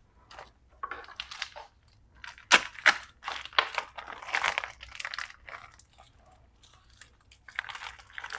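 Plastic packaging of raw chicken tenders crinkling in short, irregular bursts as it is handled, with two sharp crackles about two and a half seconds in.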